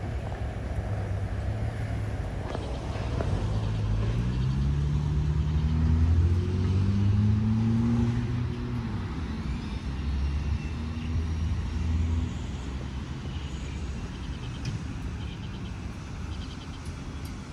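A car driving by, its engine note climbing as it speeds up, loudest about halfway through, then fading away.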